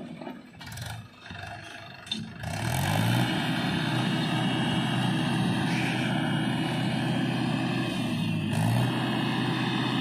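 Swaraj tractor's diesel engine running, quieter for the first couple of seconds, then revving up about three seconds in and running steadily. It revs up again near the end, as the hydraulic tipper begins to raise the loaded trolley.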